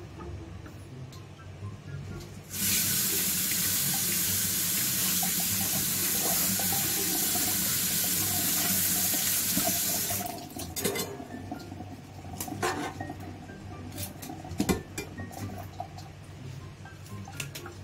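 Kitchen tap running into a stainless steel sink, water splashing over leafy greens as they are rinsed; it starts about two and a half seconds in and is shut off after about eight seconds. After that come scattered clicks and knocks of wet greens and a knife being handled in the sink.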